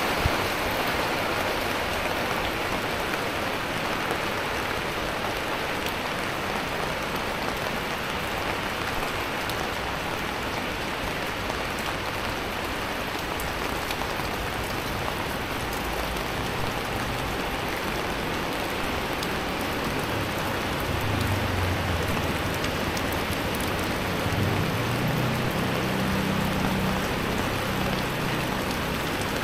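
Heavy rain falling steadily on an umbrella and a wet street. From about 20 seconds in, a low hum joins it.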